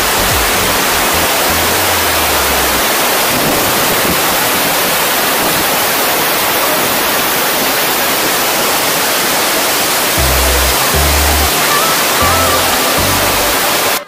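A large waterfall, Duduma Falls, roaring: a loud, steady rush of falling water with no let-up. Background music with low bass notes runs underneath, most clearly near the start and in the last few seconds.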